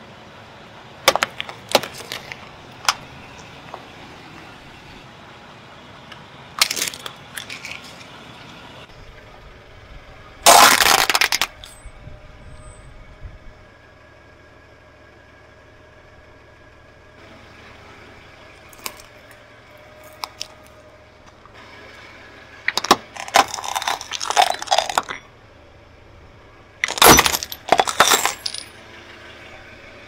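Car tyre rolling over and crushing small objects on asphalt: a string of separate cracks, snaps and crunches. The loudest comes about ten seconds in, with thicker clusters of crunching near the end.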